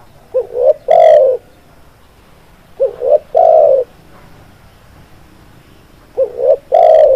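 Spotted dove (tekukur) cooing: three calls about three seconds apart, each two short notes followed by a longer, louder coo.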